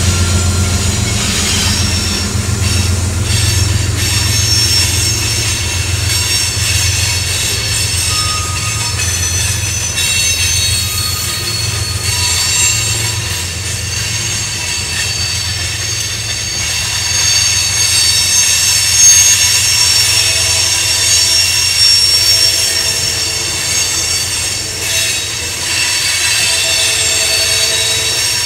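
Cars of a loaded rock train rolling past with their wheels squealing in several steady high tones. A low rumble runs under them for the first ten seconds or so, then weakens, and the squeal is loudest in the second half.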